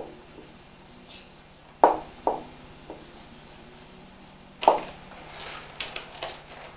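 Marker writing on a whiteboard: a few short, sharp strokes and taps, the loudest about two seconds in and again near five seconds, with a run of lighter strokes after.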